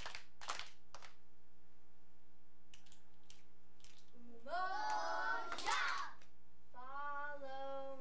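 Three hand claps about half a second apart, then voices making drawn-out, sliding vocal sounds in the middle, and a long held tone near the end that drops in pitch as it stops.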